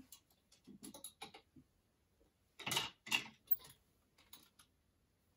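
Clothes hangers clicking and sliding along a metal closet rail as garments are pushed aside, with two louder scrapes near the middle.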